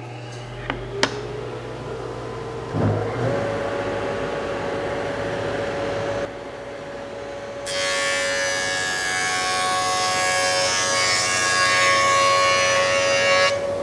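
Jointer motor coming up to speed with a rising whine, then settling to a steady hum. From about 8 s the cutterhead cuts loudly into a cherry board as it is face-jointed to take out its cup, stopping just before the end.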